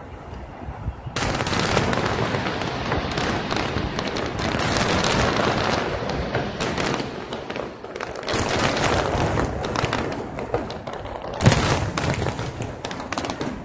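Aerial fireworks bursting in a dense barrage of booms and crackles that starts about a second in and keeps going, with the single loudest boom near the end.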